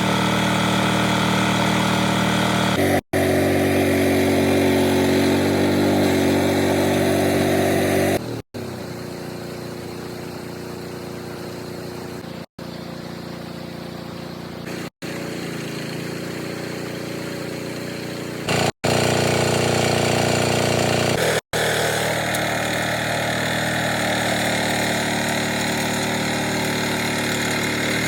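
Rice harvester's engine running steadily, heard in several clips joined by abrupt cuts. It is louder in the first third and after about 19 seconds, and quieter in between.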